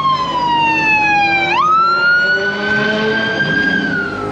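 Police car siren wailing: a falling tone snaps back up about a second and a half in, climbs slowly, and starts falling again near the end.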